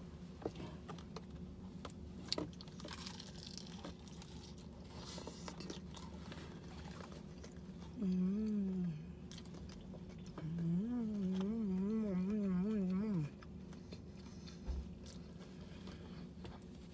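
Close-up biting and chewing of crispy fried chicken, with a few sharp crunches in the first few seconds. A short closed-mouth hum of enjoyment comes about eight seconds in, then a longer wavering 'mmm' about three seconds later.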